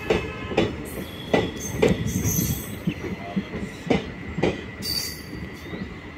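Indian Railways passenger express arriving slowly, its coaches rolling past: wheels clack irregularly over rail joints above a low rumble, with several brief high-pitched squeals from the wheels.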